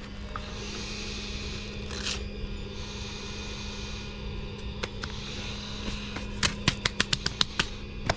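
Sanding on the keel's fairing compound: a light scraping hiss over a steady low hum. From about six seconds in come a quick run of sharp, uneven taps.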